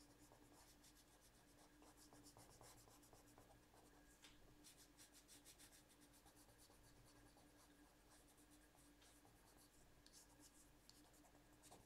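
Faint scratching of a coloured pencil shading on paper, many quick, irregular strokes.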